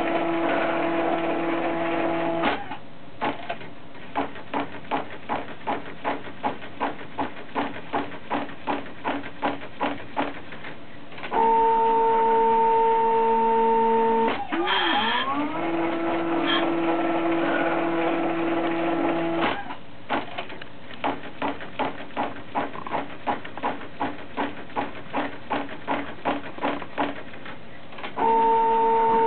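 Home-built plaster-powder 3D printer with an ink printhead, working through its print and recharge cycles. Stepper motors whine in steady tones in several stretches. Between them come quieter runs of regular mechanical ticking, about two ticks a second.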